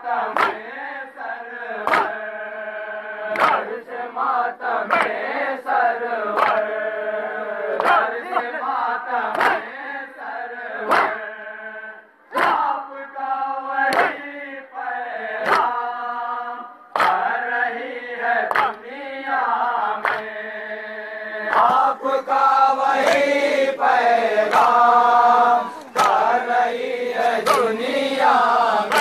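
Mourners chanting a farewell noha (a Shia lament) together, punctuated by a sharp rhythmic strike about every 1.3 seconds from matam chest-beating. The chanting grows louder about three quarters of the way through.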